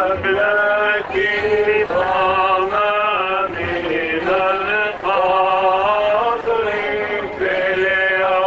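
A man chanting a hymn through a handheld microphone, in long held phrases with brief pauses between them.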